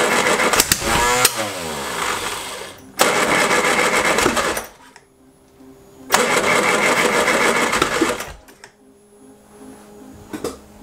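Classic Mini's Arden 8-port engine on Jenvey throttle bodies cranked on the starter in three bursts of about two seconds each, firing roughly but not catching, the first winding down with a falling pitch. The owner suspects the ignition timing is still not quite right. A quieter steady hum sits under and between the attempts.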